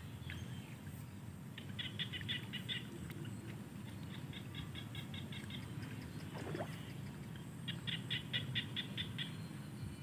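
Small paddy frogs calling: three short bouts of rapid, evenly spaced clicking pulses, each lasting about a second, over a low steady background rumble.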